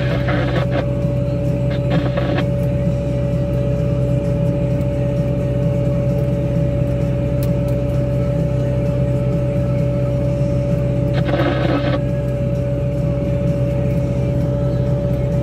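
Wille 665 loader's diesel engine running steadily under load, heard from inside the cab, driving a Tokvam snowblower through snow, with a steady high tone over the engine drone. A few short noisy bursts come near the start and again about eleven seconds in.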